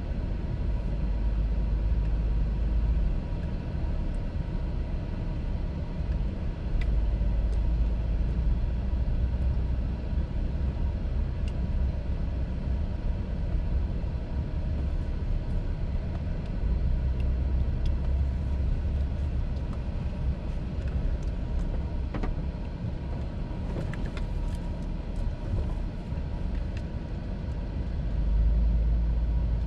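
A car being driven, with a steady low rumble of engine and road noise that swells and eases several times.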